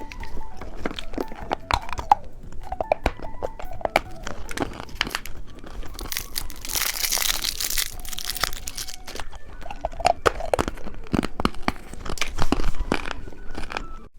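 Candy being unwrapped and eaten: packaging crinkling and tearing, loudest in a hissy stretch about halfway through, among many small crunches and clicks.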